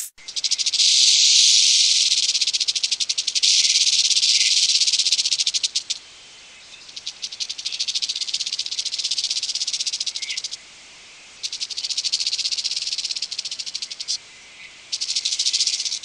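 Rattlesnake shaking its tail rattle, a rapid buzz in five bursts with short pauses between them: two long bursts, then three shorter ones. The rattle is the snake's defensive warning.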